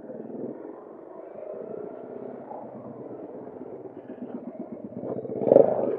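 Motorcycle engine running at low road speed, heard through an external microphone tucked inside the helmet padding, with a brief louder burst near the end.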